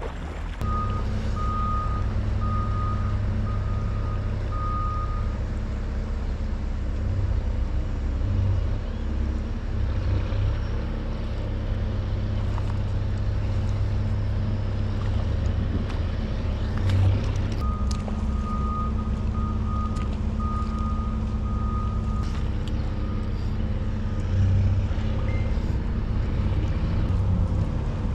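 A heavy vehicle's engine running steadily, with its reversing alarm beeping in two spells, once near the start and again about two-thirds of the way through.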